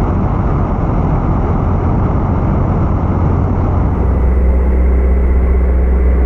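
Kitfox light aircraft's engine and propeller running steadily, with rushing air noise. About four seconds in the sound changes to a steadier, stronger low hum.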